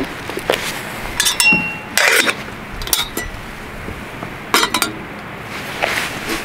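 A mont-bell camping kettle clinking and knocking as it is handled and set down on a gas stove's metal pot supports: a handful of sharp metal clinks, one about a second in ringing briefly.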